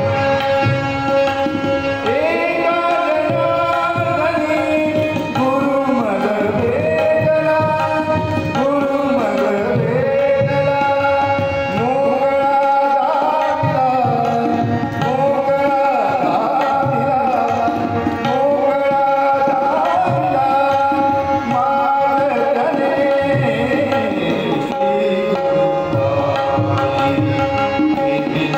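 Live Indian devotional song (bhajan): a male voice singing gliding, ornamented phrases over a steady harmonium and continuous tabla drumming.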